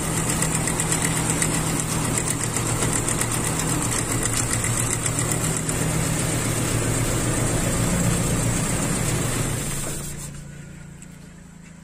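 Toyota Kijang Super's carburetted four-cylinder petrol engine idling unevenly, then switched off about ten seconds in and running down to a stop. The mechanic traces the unstable idle to cylinder 4 not firing, its spark plug wet, and also suspects a false-air leak.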